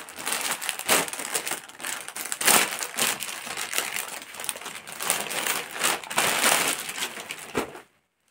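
Clear plastic packaging bag crinkling and crackling continuously as it is handled, cutting off suddenly near the end.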